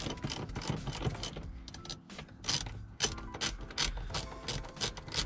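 Hand socket ratchet clicking in quick, uneven runs as it works a seat mounting bolt through the floorboard loose, with a short pause about two seconds in.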